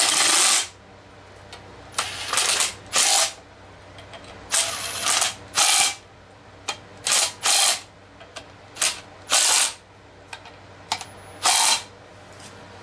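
Milwaukee cordless impact driver firing in about a dozen short, irregular bursts as it snugs down the hub-bearing-to-knuckle bolts in a crisscross pattern.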